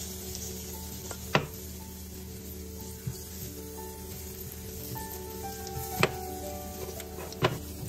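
Zucchini, carrot and egg pancakes sizzling in oil in a nonstick frying pan, with three sharp clicks as a spatula knocks against the pan.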